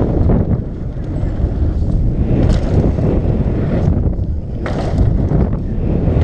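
Wind buffeting a helmet-mounted action camera's microphone while a mountain bike rides fast downhill, with a steady rumble of tyres and rattling bike parts. The tyres rumble over the boards of a wooden plank bridge, and there are a couple of sharper clatters about two and a half seconds and five seconds in.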